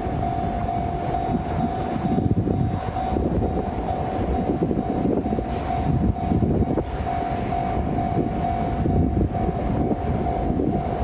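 Japanese railroad level-crossing alarm ringing with a steady repeating tone while a train runs past, its wheels and rails making an uneven low noise underneath.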